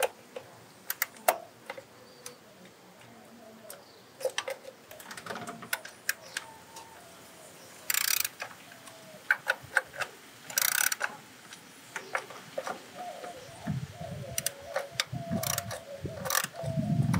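Hand socket ratchet clicking in short runs while valve cover bolts are undone, with scattered sharp clinks and taps of metal tools.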